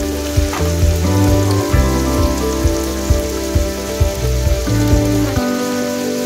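Background music with a steady beat and bass line, which drops out near the end, over the steady sizzle of pangasius catfish steaks frying in oil with garlic in a pot.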